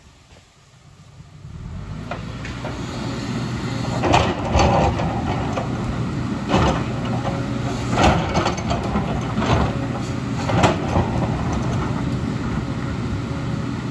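JCB crawler excavator's diesel engine running steadily under load as its bucket digs into rocky landslide debris, with about half a dozen sharp scrapes and knocks of rock against the steel bucket. The sound builds up over the first two seconds.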